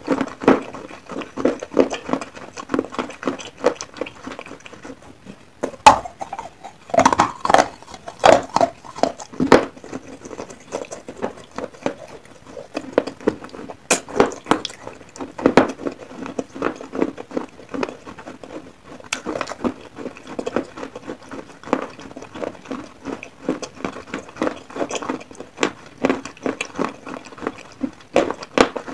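Close-miked chewing of baked clay pot pieces: a steady run of irregular crunches and gritty clicks, several a second, with a few louder cracks.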